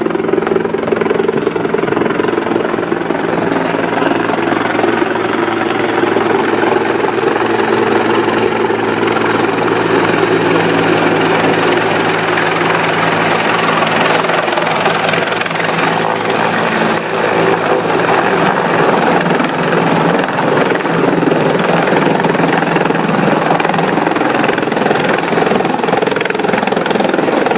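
Medical helicopter running close by: a loud, steady turbine-and-rotor noise with a thin high whine over it.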